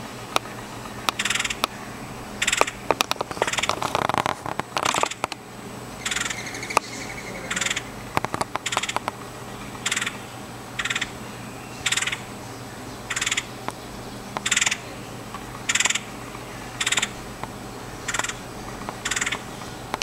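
Red-headed woodpecker calling over and over, one short call about every second and a quarter through the second half. The first few seconds hold scattered clicks and a brief rustle.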